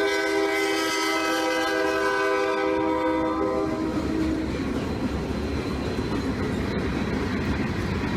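Air horn of an EMD GP-series ("Jeep") diesel locomotive giving a long blast of several notes sounded together, the upper notes dropping out about three and a half seconds in and the lowest a second later. The train then rolls past with steady wheel and rail noise.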